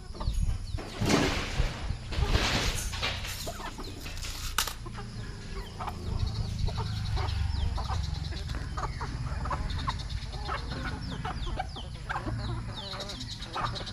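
A flock of chickens clucking and calling, with many short, high, falling calls throughout. A few loud rustling bursts come in the first few seconds.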